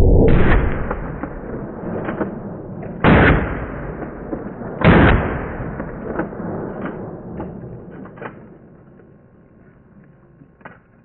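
Shotgun blasts: a loud one ringing out at the start, then two more sharp shots about two seconds apart, each with a long decaying tail. A few small knocks follow as it fades out.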